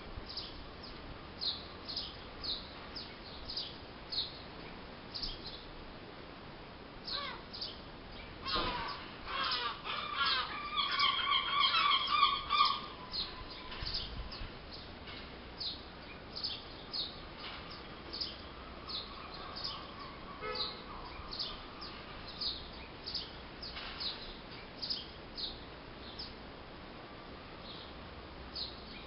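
Birds calling: one small bird repeats a short high chirp about twice a second throughout, and a larger bird gives a run of louder, harsher calls from about 9 to 13 seconds in.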